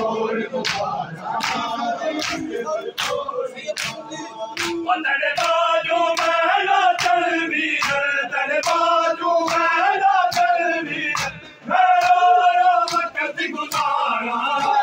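Men chanting a noha in chorus over matam, chest-beating slaps struck in unison about every three-quarters of a second. The chanting swells about a third of the way in and breaks off briefly near the end before resuming.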